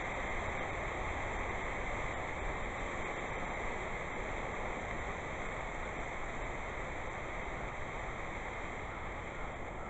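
A cup of ammonium nitrate fertilizer burning and smoking, giving off a steady rushing hiss that slowly fades.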